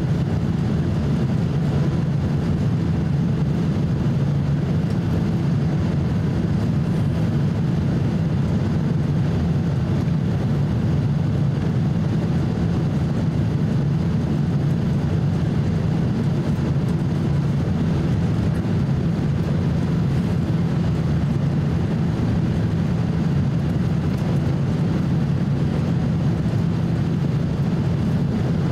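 Steady cabin noise inside a Boeing 767-300 during descent on approach: the turbofan engines and rushing airflow as an even, low rumble.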